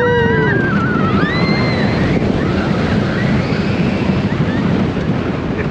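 Wind rushing over the microphone and the Steel Eel coaster train rumbling along its steel track at speed. Riders scream twice in the first couple of seconds, one lower whoop and then a higher scream.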